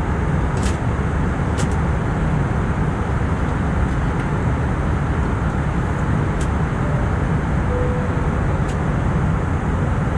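Steady cabin noise inside an Airbus A319 in flight: a constant low rush of airflow and engine drone, with a few faint clicks.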